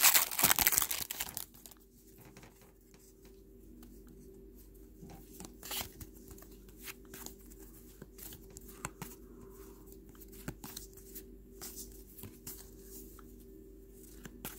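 A trading card pack's plastic wrapper torn open and crinkled for the first second or so, then the cards slid and flicked through by hand, with many faint short clicks and rustles.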